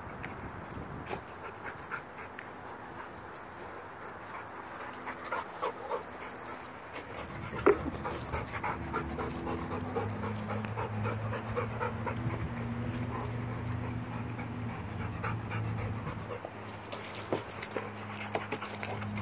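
A dog close to the microphone, sniffing and breathing as it noses around in the grass, with many small scattered clicks. A steady low hum comes in about halfway through.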